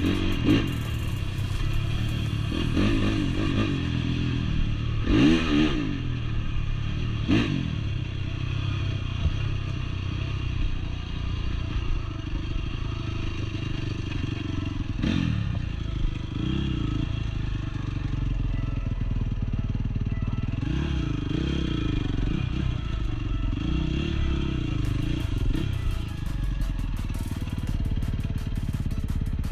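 Honda CRF four-stroke dirt bike engine running under way off-road. The revs surge sharply a few times, about five, seven and fifteen seconds in.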